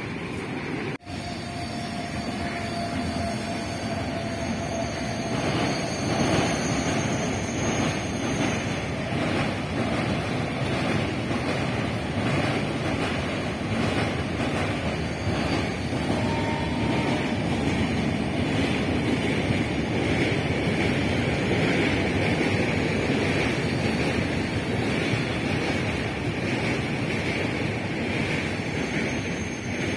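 Long passenger train of red coaches running past on the track: a steady rumble with wheels clattering on the rails, mixed with wind noise on the microphone.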